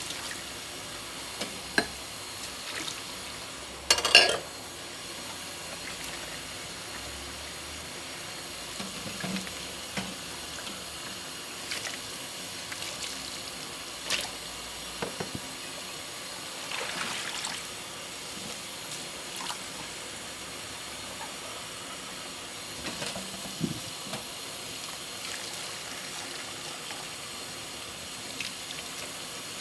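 Dishes being washed by hand at a kitchen sink: water running steadily, with scattered clinks and knocks of dishes and one louder clatter about four seconds in.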